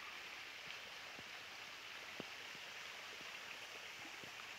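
Quiet forest ambience: a faint steady hiss with a few soft, short ticks scattered through it.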